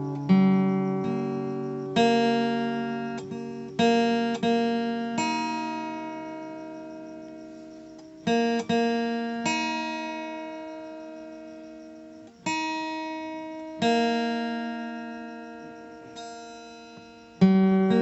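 Slow, relaxing background music of plucked acoustic guitar: a chord or note sounds every one to four seconds and rings out, fading before the next.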